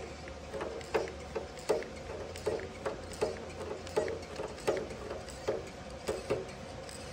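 Hand-pumped grease gun being stroked, a clicking clunk about every three-quarters of a second, nine or ten strokes in all, forcing fresh grease into an airplane propeller blade hub. Each stroke pushes the old, thinned grease out of the open rear fitting, flushing the hub whose blade seals had been leaking oil.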